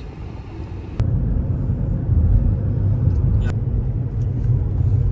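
Low, steady rumble of a car on the move, heard from inside the cabin: engine and road noise, jumping suddenly louder about a second in.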